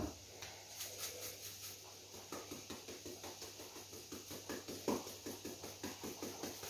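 Plastic barbecue-spice shaker being shaken and tapped over a raw T-bone steak: a quick, even rattle of spice granules, about five shakes a second, with one harder tap near the middle.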